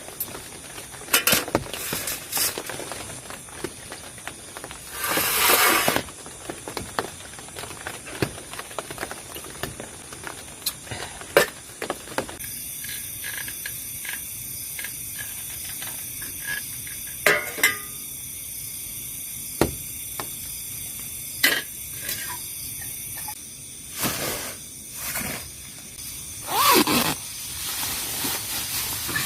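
Scattered clicks, knocks and rustles over a steady hiss, with a longer rushing burst about five seconds in and another near the end.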